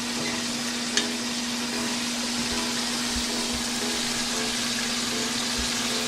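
Karaage (Japanese fried chicken) sizzling steadily in hot oil, with one sharp click about a second in and a steady low hum underneath.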